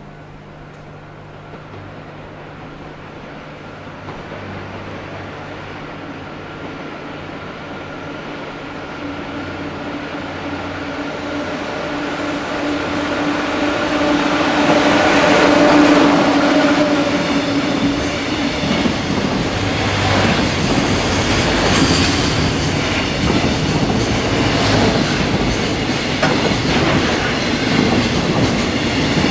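EF66 electric locomotive hauling a container freight train through a station at speed, running sound growing steadily louder as it approaches and peaking as the locomotive passes about halfway through. The container wagons then rattle past with a dense clickety-clack of wheels over the rail joints.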